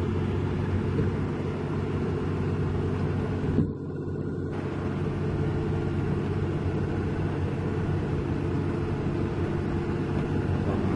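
Heavy diesel engine running steadily with a deep, even drone. The sound briefly dulls and drops in level about four seconds in.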